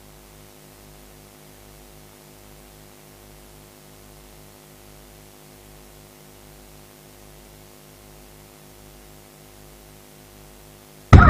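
Steady electrical mains hum with an even pulsing, from the hall's sound system while no music plays. Loud music cuts in suddenly at the very end.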